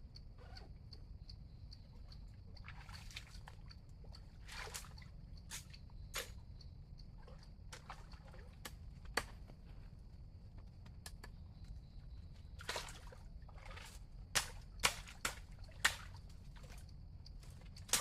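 Water sloshing and splashing with irregular sharp knocks, several louder ones close together near the end, over a faint steady high tone.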